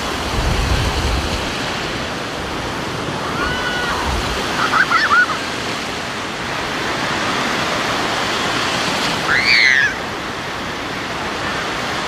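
Rough sea surf breaking and washing up the shore in a steady rush of water, the waves running strong. A few short high voices cry out about four to five seconds in, and one louder cry comes near the end.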